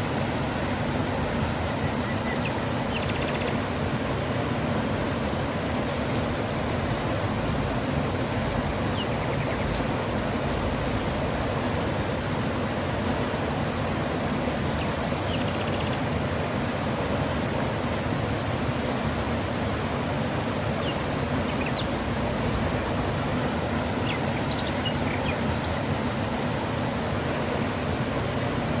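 Mountain river flowing, a steady rush of water. Over it a faint high chirp repeats about twice a second, breaking off for a few seconds past the middle, with a few short high chirps after that.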